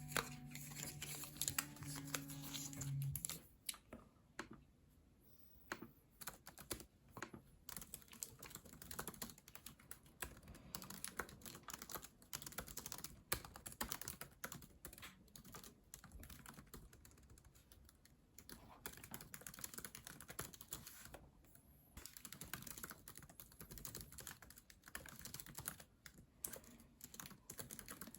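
Typing on a keyboard: quick, irregular key clicks, with short pauses.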